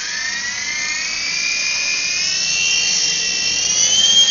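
Electric motors and rotors of an HG08 mini RC helicopter whining as they spin up. The pitch rises steadily, then climbs higher and louder near the end.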